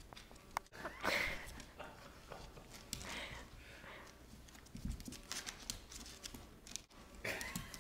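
A small shaggy dog moving about on a hardwood floor, faint: claws clicking and scrabbling on the boards as it rolls, with a few short sniffs at the couch.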